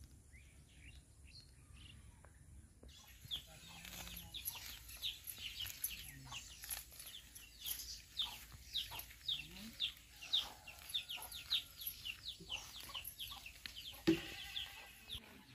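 Birds chirping in many short, falling calls, several a second, louder from about three seconds in. A single thump near the end.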